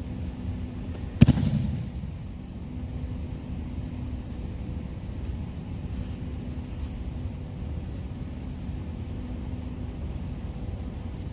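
A judoka thrown onto the tatami lands in a breakfall: one sharp slap-thud on the mat about a second in, with a short ringing decay. A steady low hum runs underneath.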